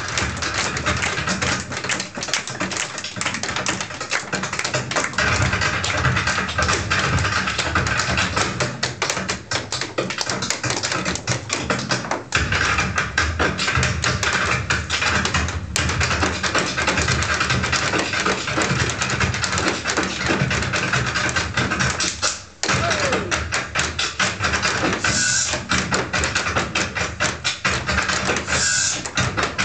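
Irish dance hard shoes of two dancers striking a wooden floor in fast, rhythmic taps, danced a cappella with no music. The tapping stops briefly about two-thirds of the way through, then picks up again.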